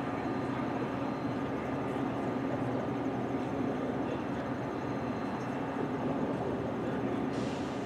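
Metra bilevel commuter train standing at the platform, running with a steady mechanical hum, with a brief hiss near the end.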